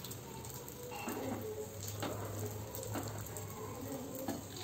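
Paddu batter poured from a ladle into the hot, oiled cups of a cast paddu pan, faintly sizzling, with a few light clicks about once a second.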